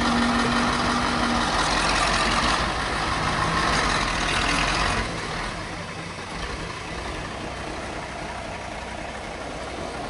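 Loaded logging truck's diesel engine running as the truck drives slowly over a dirt track, heard as a steady noisy rush. The rush drops in level about five seconds in.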